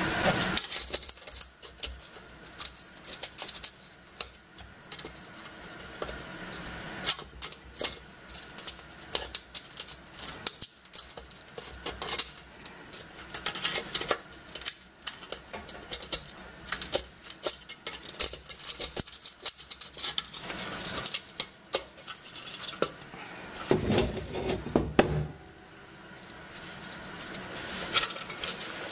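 A thin metal tool scraping and picking at rust and crusted dirt inside a corroded steel M35 helmet shell: a quick, irregular run of scratches and small metallic clicks, with a louder stretch about three quarters of the way through.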